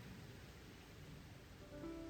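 Faint steady rain and street ambience, a low even hiss. About 1.7 s in, a quiet melody of held musical notes begins.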